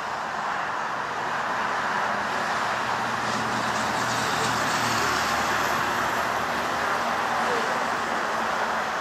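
Steady road traffic noise, with a vehicle engine swelling as it passes about three to five seconds in.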